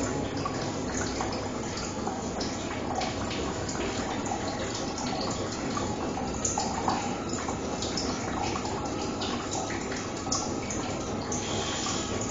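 Water running steadily in a bathroom, a constant rush broken by small splashes and drips.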